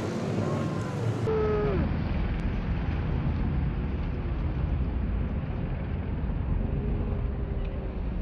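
V8 dirt modified race car engines running on the speedway, a steady rumble with one engine note falling in pitch about two seconds in as a car goes by.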